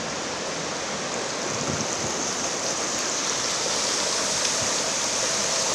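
Floodwater flowing and churning through a flooded street: a steady rush of water.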